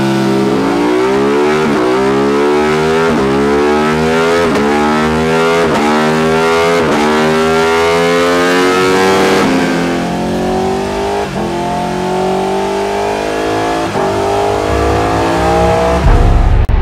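Ducati Panigale V2's L-twin through a full Akrapovič exhaust, revving hard in repeated climbs. The pitch rises and then drops sharply at each gear change, about every second and a half. After about ten seconds the climbs stretch out longer.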